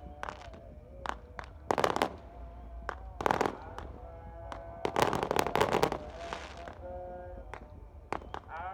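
Firecrackers going off: scattered single sharp bangs, with dense crackling volleys about two seconds in, around three and a half seconds, and a longer one from about five to six seconds.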